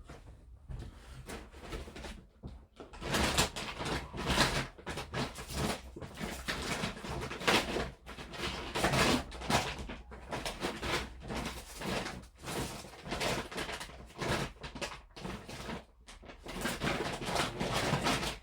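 Someone rummaging through stored tools and small items, with irregular clattering and rustling that keeps going as things are moved about in the search for a pair of tweezers.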